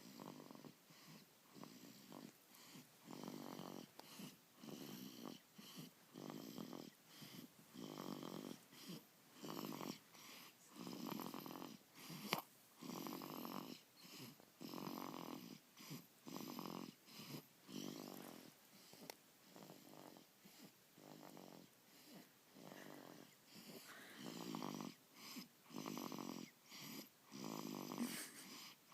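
Quiet snoring in a quick, even rhythm of short breaths a little under a second apart.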